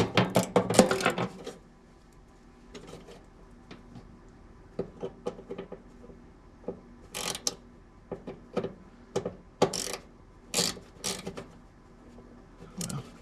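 Hand driver tightening screws into a furnace blower motor mount: a dense run of ratcheting clicks for the first second and a half, then scattered light clicks and knocks of metal parts and tools.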